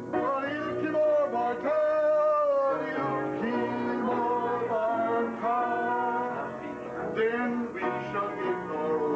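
Amateur group sing-along: several people, men's voices prominent, singing a song to piano accompaniment, with long held notes.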